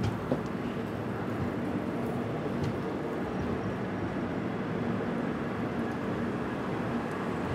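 Steady running noise of an Indian Railways express train: a continuous rumble with a few faint clicks.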